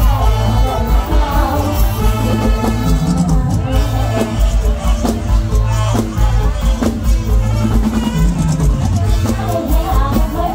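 Live mor lam band music: an upbeat dance groove with a steady bass line and drum beat under a melodic line, with a snatch of singing.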